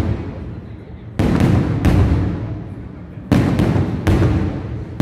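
Aerial fireworks shells bursting overhead: four sharp booms about a second apart, each trailing off in a low rumble.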